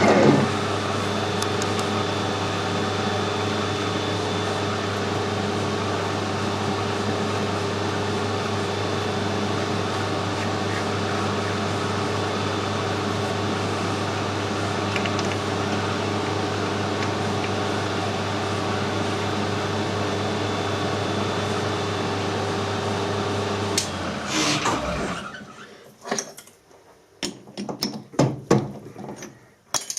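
Metal lathe running steadily with a constant motor hum, then switched off about 24 seconds in and spinning down to a stop. A few light clicks and knocks follow near the end.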